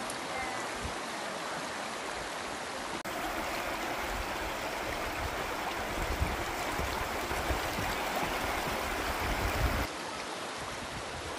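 Fast-flowing river, Hebden Water, rushing over the rocks and around stepping stones: a steady rush of water.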